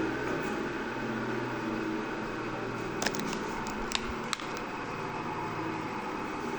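Steady electric motor hum of a Ts6-2 circular saw bench running free, its blade mounted directly on the 4 kW motor shaft. A few light clicks come about three to four seconds in.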